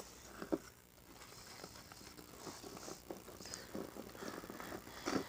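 Whisk stirring thick cake batter in a bowl: faint, irregular soft taps and squelches, with a sharper knock about half a second in and another just before the end.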